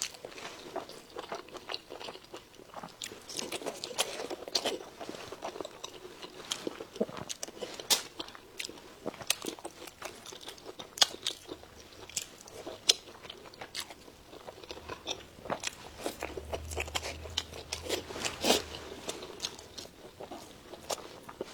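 A person chewing crunchy food close to the microphone: a long irregular run of sharp crunches, bites and wet clicks of the mouth.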